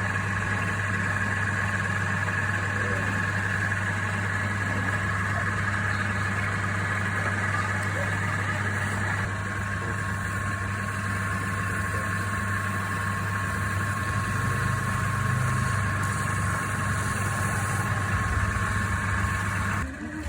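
Woodturning lathe motor running steadily with a low hum and a steady whine, stopping near the end.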